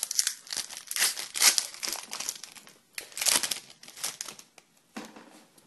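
Crinkling and rustling of hockey card packs and cards being handled, in uneven bursts with short lulls and a sharp click about five seconds in.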